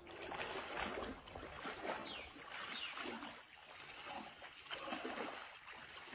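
Water swishing and splashing around the legs of a person wading thigh-deep in chest waders, surging with each stride about once a second.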